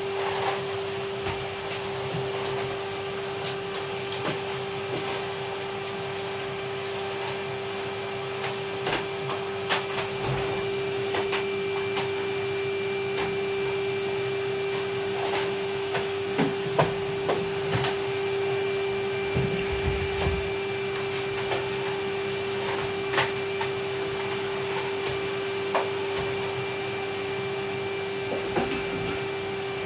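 Vacuum cleaner running steadily, a constant rushing hiss with a steady whine, broken by scattered sharp clicks and knocks as it is pushed about.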